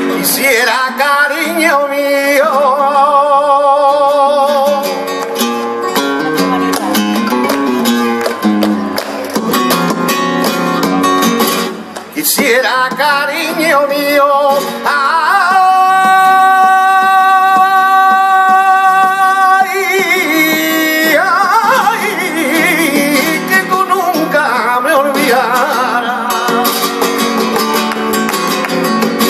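Flamenco colombianas: a man sings, holding one long, wavering note about halfway through, over a plucked and strummed flamenco guitar, with hand-clapped palmas keeping time.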